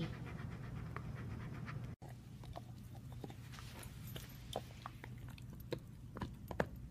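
Siberian husky panting briefly, then gnawing on a chew stick: irregular soft clicks and crunches of teeth on the stick.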